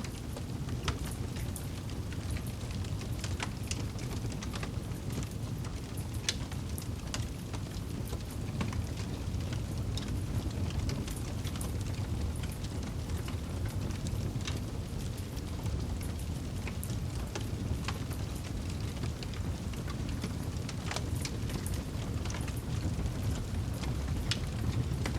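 Wood campfire burning, with a steady low rush and irregular sharp crackles and pops from the wood.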